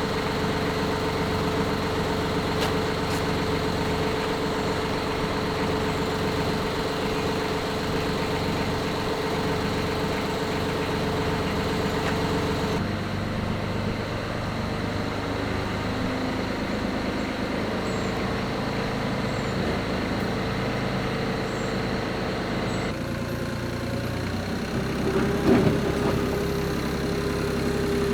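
An engine running steadily, its pitch and tone changing abruptly about 13 and 23 seconds in, with a short loud clatter a couple of seconds before the end.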